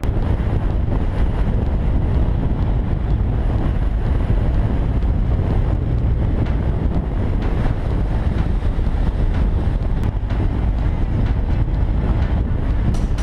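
Riding motorcycle heard from its onboard camera: a steady rumble of wind buffeting the microphone, with the engine of the BMW adventure bike running underneath.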